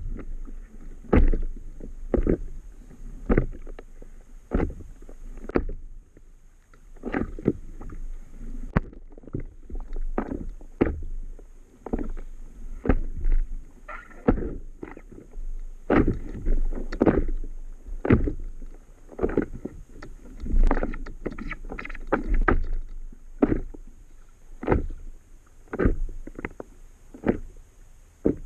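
Small waves slapping and knocking against the hull of an Itiwit 11 inflatable paddle board as it rocks in the chop: irregular hollow thuds, one or two a second, over a low rumble of water.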